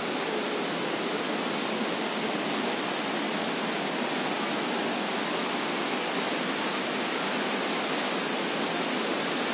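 Rushing water of a rocky hill stream cascading over boulders, a steady, even hiss.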